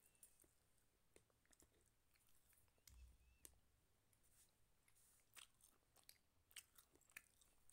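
Faint, near-silent chewing of soft flatbread by a toddler, with scattered small mouth clicks.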